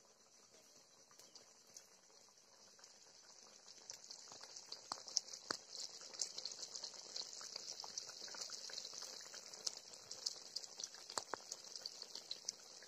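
Bitter gourd curry boiling in a kadhai: a faint steady hiss with many small bubbles popping, the popping growing busier about four seconds in.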